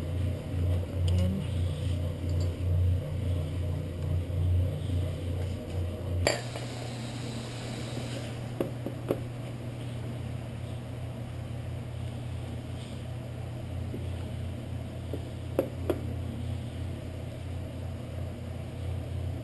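Light metallic clinks of small brake parts being handled, over a low hum that pulses for about six seconds, stops with a sharp click, and then goes on steadier. A few faint clicks follow later on.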